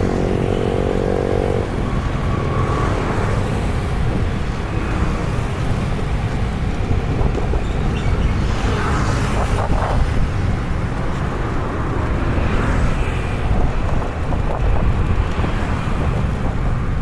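Road traffic noise heard from a moving bicycle: vehicles passing over a steady low rumble.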